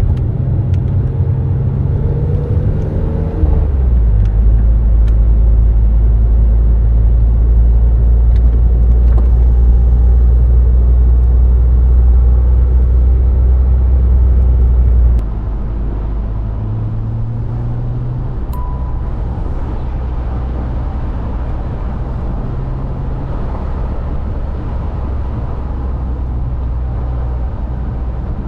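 BMW Z3 M Roadster's 3.2-litre inline-six heard from the cockpit while driving: the engine note rises for the first few seconds, drops in pitch and grows louder about three and a half seconds in, and holds a loud steady drone. About fifteen seconds in the sound falls suddenly quieter and runs on steadily with small pitch changes.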